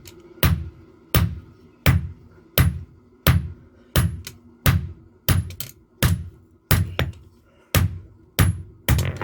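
Hammer blows on steel forging a knife from a vehicle leaf spring: a steady rhythm of heavy strikes about every 0.7 s, some doubled, a few with a short metallic ring. Background music plays underneath.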